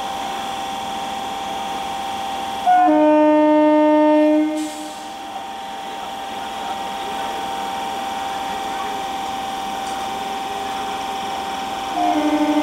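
Air horn of an Eastern Railway EMU local train sounding for departure: one loud blast about three seconds in, lasting nearly two seconds, and a second, fluttering blast starting near the end. Under both runs a steady whine from the standing train.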